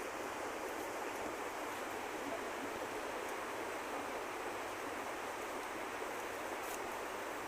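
Steady rush of running water from a small seasonal creek carrying little water.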